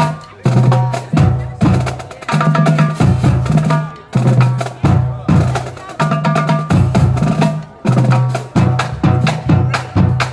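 High school band of brass, woodwinds, sousaphone and drums playing a lively tune in short, loud, repeated phrases, with a steady bass line under sharp drum hits.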